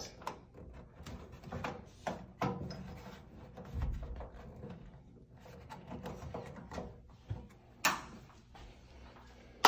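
Range hood's bulb cover being handled and pushed back into its two slots: scattered light clicks and taps, a low thud about four seconds in, and one sharp click near the end.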